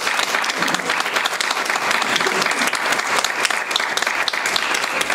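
Audience applauding, a steady spread of clapping from many hands.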